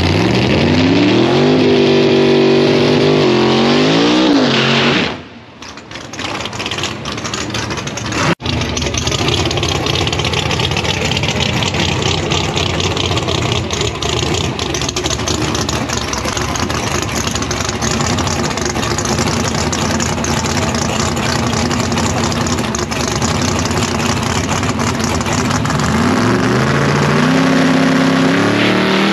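Drag racing car engine running loud; its pitch climbs over the first couple of seconds, holds, then drops away about five seconds in. After a sudden break comes a long, loud, steady engine noise, and near the end the engine pitch climbs again.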